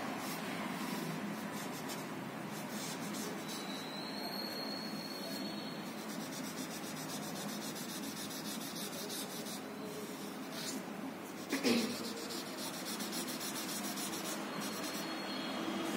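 Black felt-tip marker rubbing across drawing paper as it colours in a solid area. About twelve seconds in, a short, sudden sound with a falling pitch stands out as the loudest moment.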